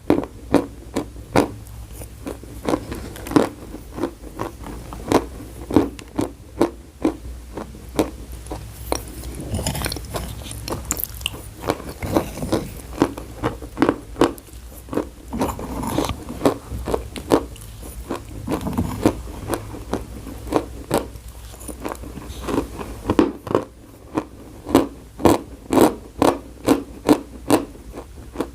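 A person chewing chalk close to the microphone, with sharp crunches, often about two a second, and a softer stretch of grinding in the middle.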